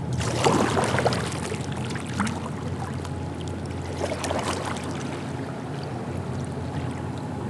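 Kayak paddle strokes in river water: the blade dipping, pulling and dripping with small splashes, strongest about half a second to a second in and again about four seconds in, over the steady rush of the current.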